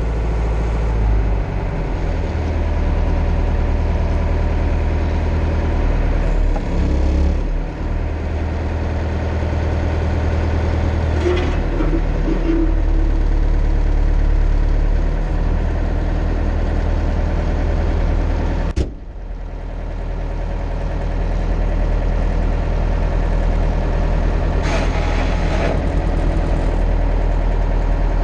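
Mercedes-Benz MB Trac 800 tractor's diesel engine idling steadily, heard from inside the cab. A single sharp click comes about two-thirds of the way through, after which the engine sound briefly dips and then settles again.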